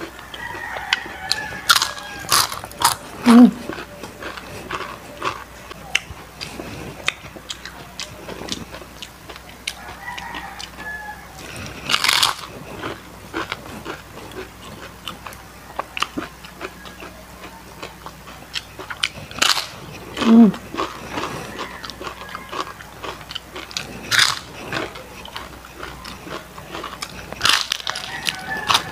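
Close-up crunching and chewing of deep-fried crispy chicken skin: a run of sharp, crackling bites, with the loudest crunches about 3 seconds and about 20 seconds in.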